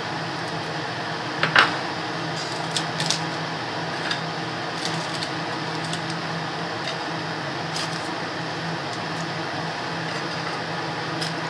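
Steady low hum and hiss of room tone, with a few light clicks and taps as biscuits are laid onto a chocolate-spread biscuit layer in a loaf tin. The loudest tap comes about a second and a half in.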